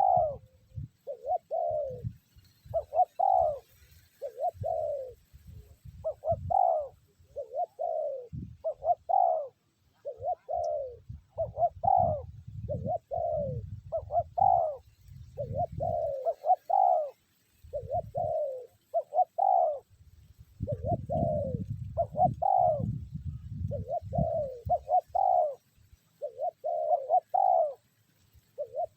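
Spotted dove cooing over and over, a short falling coo note about once a second, with a low rumble underneath at times.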